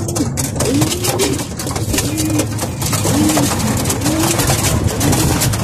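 Racing pigeons cooing in the loft, short rising-and-falling coos about once a second from more than one bird, over scattered clicks and rustling.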